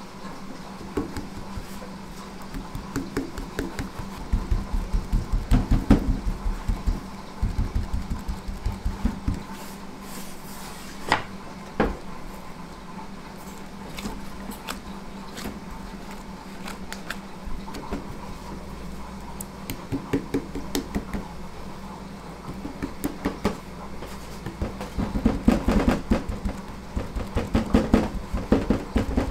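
Gloved fingertips rapidly patting and pressing pizza dough into a greased steel Detroit-style pan. The quick runs of soft thumps come a few seconds in and again near the end, over a steady kitchen hum, with a couple of sharp clicks in between.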